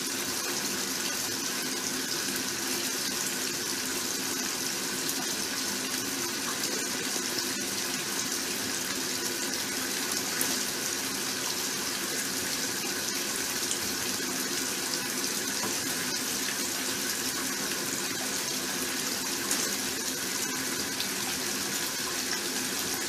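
Water running steadily with a faint steady whine beneath it, unchanging throughout.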